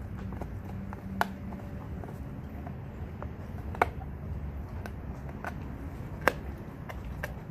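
A dog chewing on a raw deer leg: sharp clicks and cracks of teeth on bone and hoof, three loud ones about two and a half seconds apart with fainter ones between, over a steady low rumble.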